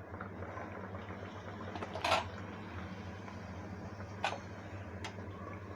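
A few short knocks and clinks of a kitchen utensil against a frying pan, the loudest about two seconds in, over a steady low hum.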